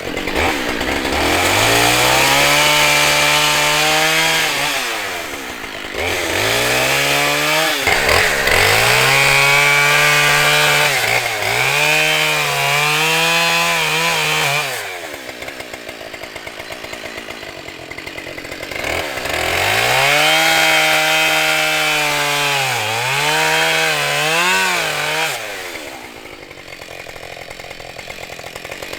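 Husqvarna 572XP two-stroke chainsaw revving up and held at high speed in several long runs, its pitch sagging briefly now and then, dropping back to idle between runs and near the end.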